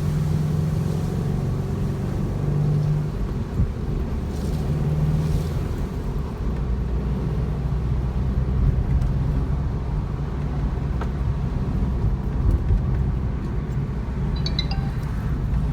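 Subaru WRX STI (VAB) on the move: its turbocharged flat-four runs at a steady drone over continuous road rumble, holding a steady low engine note for the first three seconds and again briefly about four seconds in.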